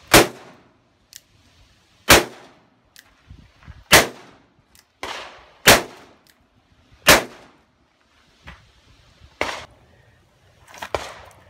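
Five sharp shots from a North American Arms Sheriff .22 Magnum mini revolver, fired one at a time about one and a half to two seconds apart, each with a short ringing tail. Fainter cracks come between them and after the last one.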